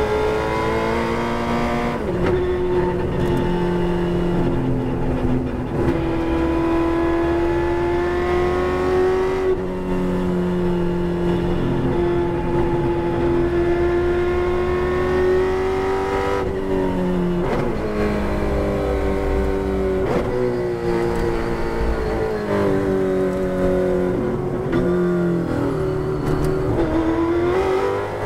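Holden Torana race car's V8 engine heard from inside the cabin, running hard at high revs. Its note drops several times as the car slows for corners and climbs again near the end as it accelerates.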